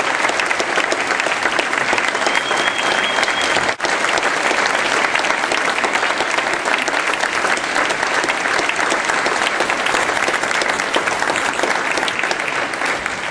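Theatre audience applauding steadily, easing off slightly near the end.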